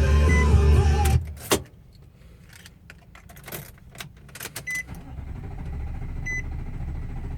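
Nissan NV van's starter cranking the engine for about a second without it catching, then stopping with a click. A quieter stretch follows with scattered clicks and a few short beeps, and a steady low hum comes in near the end.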